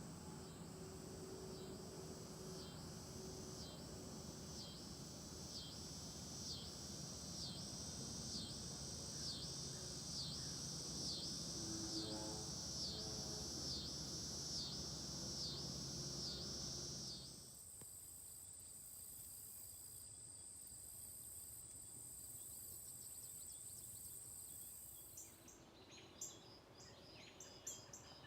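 Outdoor nature ambience: high chirps repeating a little over once a second over a steady high-pitched insect drone. The sound changes abruptly twice, the second time to quieter scattered clicks and chirps.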